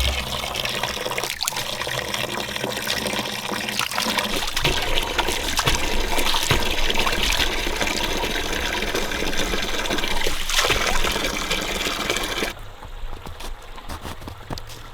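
Water running hard from a garden hose and splashing. The flow cuts off sharply near the end.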